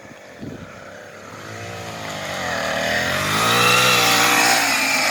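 Small gas engine revving under throttle, its pitch dipping and climbing again as it draws closer and grows much louder, loudest about three and a half seconds in.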